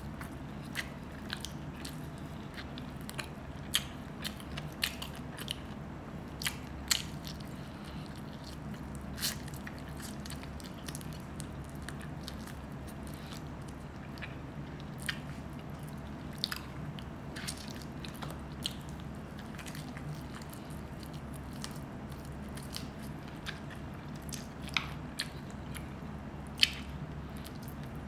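Close-up eating sounds: chewing and biting on soft-cooked chicken feet, with scattered sharp clicks and smacks, a few of them loud, over a steady low hum.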